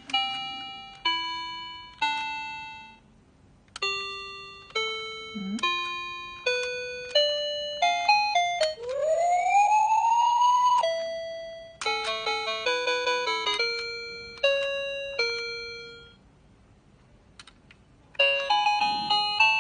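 Electronic toy baby phone playing chime tones and short electronic tunes as its buttons are pressed, each sound fading off before the next. About halfway through comes a rising, swooping sound effect lasting about two seconds, and the toy falls quiet twice, briefly a few seconds in and for about two seconds near the end.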